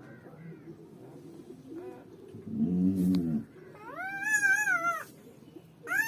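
Newborn German shepherd puppy crying: a high, wavering squeal lasting about a second, about four seconds in, and another starting near the end. A brief low moan comes just before the first cry.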